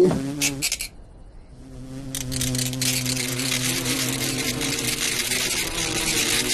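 Swarm of cartoon grasshoppers chirring: a dense, steady high buzz that sets in about two seconds in, over a low steady hum. Before it, a loud sound with a wavering pitch breaks off within the first second.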